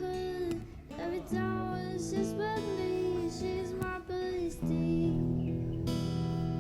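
Background music: an acoustic guitar piece with a gliding melody over held low notes.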